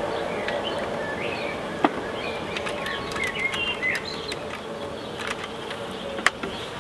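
Honeybees humming steadily from an opened hive, with small birds chirping between about two and four seconds in. Two sharp knocks come from the wooden observation hive being handled, the louder one near the end.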